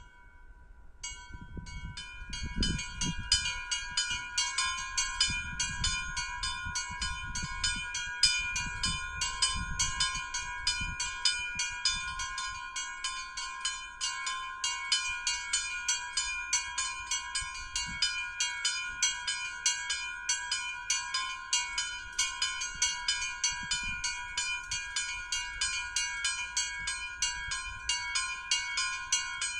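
Two small chapel bells in a bell gable rung by hand in a fast, continuous peal, about two to three strokes a second, starting about a second in.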